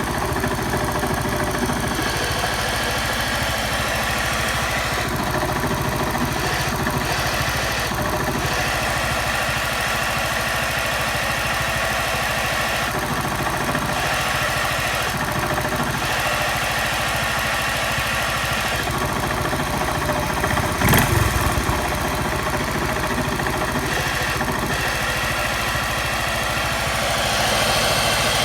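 Honda Monkey's small single-cylinder four-stroke engine idling, with an abnormal noise that comes when the clutch lever is squeezed; the owner does not know the cause and suspects the clutch or crank. The sound changes in several stretches of a second or more, and a single sharp knock stands out about 21 seconds in.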